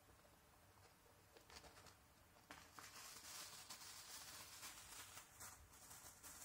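Thin plastic bag crinkling and rustling as a Siberian chipmunk scrambles over it. The sound is faint and becomes steady about two and a half seconds in.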